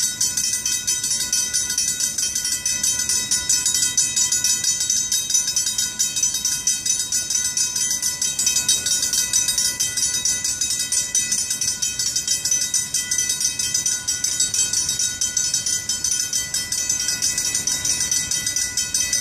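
Griswold mechanical railroad-crossing bells ringing fast and steadily, a continuous metallic clatter of rapid strikes. The crossing warning is active, signalling an approaching train.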